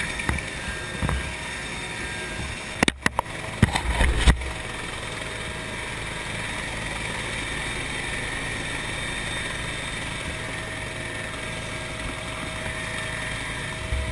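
Rescue helicopter running, heard from inside the cabin with the side door open: a steady rotor and turbine noise. A cluster of sharp knocks comes about three to four seconds in.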